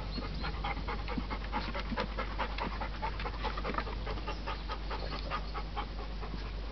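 A dog panting in quick, short breaths, several a second.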